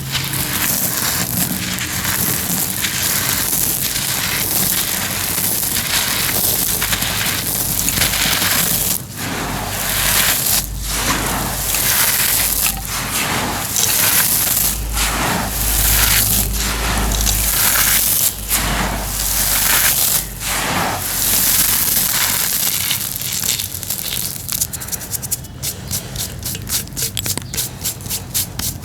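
Homemade cement pieces crunching and crumbling, a dense gritty crackle of many small breaks. Near the end it turns into a quick, even run of short scrapes, several a second.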